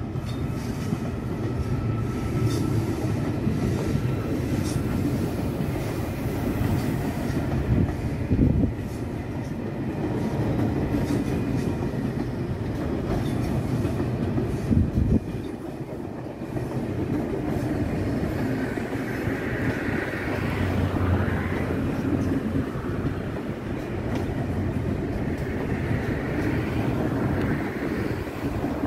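High-speed electric train rolling slowly across the station approach tracks: a steady rumble of wheels on rail, two sharp knocks about 8 and 15 seconds in as wheels cross the points, and a few faint wheel squeals later on.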